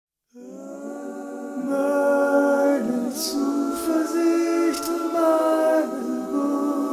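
A cappella singing: several layered voices hold slow, sustained notes, starting about half a second in, with a few hissed consonants around the middle.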